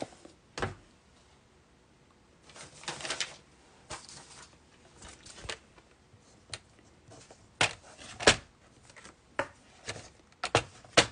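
Plastic and paper crafting tools handled on a tabletop: a stamp case lifted aside and a paper trimmer set down and moved into place. Scattered separate clicks and knocks, with a short rustle about three seconds in; the sharpest knock comes about eight seconds in, and a quick cluster of clicks comes near the end.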